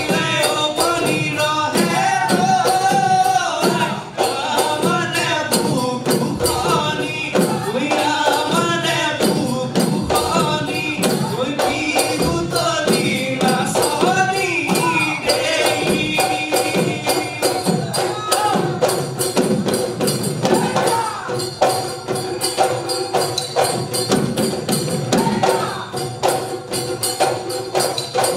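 Assamese Bihu folk music: voices singing over dhol drums and jingling hand percussion with a quick, steady beat. The singing is strongest in the first half; after that the instruments carry the tune.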